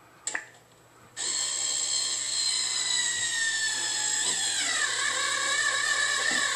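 Cordless drill driving a screw in: a short click, then about a second in the motor starts with a steady whine that drops in pitch partway through.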